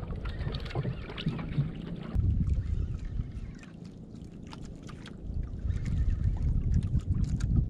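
Wind rumbling on the microphone over water sloshing against a small boat, with scattered small knocks and splashes. The rumble eases off for a moment in the middle, then picks up again.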